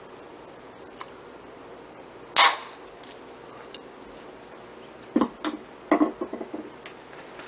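A homemade mini cannon, built from a barbecue lighter's igniter and fuel tank and an airsoft gun barrel, fires once with a single sharp pop about two and a half seconds in. A few irregular clattering knocks follow near the end.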